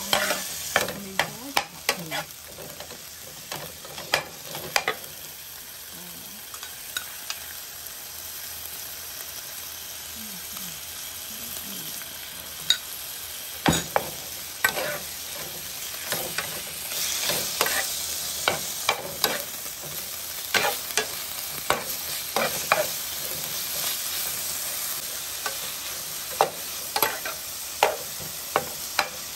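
Sliced beef sizzling in a frying pan while a metal spatula stirs it, scraping and clacking against the pan many times. The sizzle swells a little past halfway.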